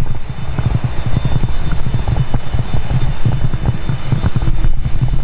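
Strong wind buffeting the microphone in irregular gusty thumps and rumble, over a faint steady high whine from the taxiing Nextant 400XT business jet's turbofan engines.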